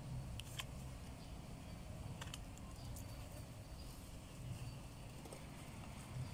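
Faint, light splashing and dripping of water as a baby monkey moves about in a shallow tub of soapy water: a few short clicks and splashes over a steady low rumble.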